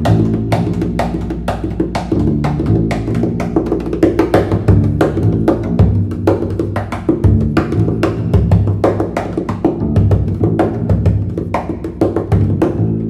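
Background music: a quick percussive beat of wood-block-like clicks over low sustained notes.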